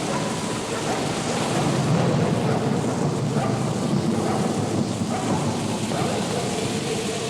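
Sound-effect rumble over a steady noisy hiss, swelling in loudness about two seconds in.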